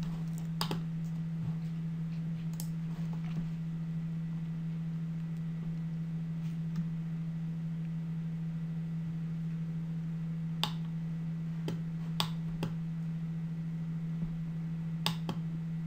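A few scattered computer mouse clicks, most of them bunched in the second half, over a steady low electrical hum.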